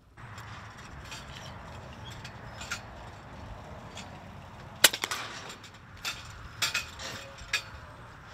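A .22 air rifle firing a slug: one sharp crack about five seconds in, followed by a few lighter clicks and knocks, over steady outdoor background noise.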